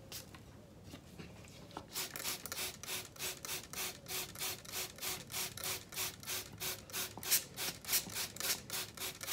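A cloth rubbed back and forth on the outside of a ceramic bonsai pot, wiping soil off: a steady rhythm of rubbing strokes, about three or four a second, starting about two seconds in.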